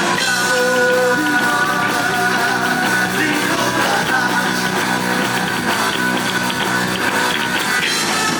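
Heavy metal band playing live at full volume: electric guitars, bass and drums, with held lead-guitar notes over the steady beat.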